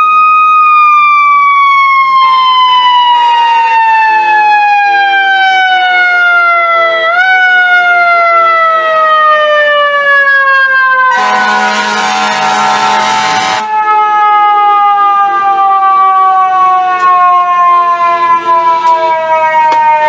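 FDNY ladder truck's mechanical siren winding slowly down in pitch, with a short rewind about seven seconds in. Around the middle, the truck's air horn gives one blast of about two and a half seconds before the siren keeps winding down.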